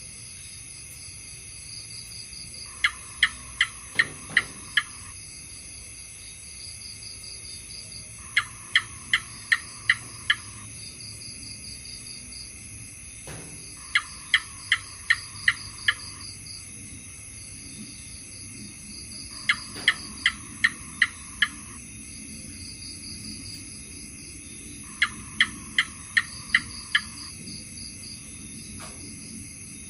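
House gecko calling: a bout of about six sharp, evenly spaced chirps lasting about two seconds, repeated five times at intervals of about five and a half seconds, over a steady high-pitched background drone.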